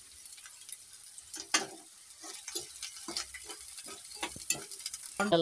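Chopped onions and green chillies sizzling in hot oil in a wide pan, softening as they fry, with a steel spoon scraping and clicking against the pan as they are stirred.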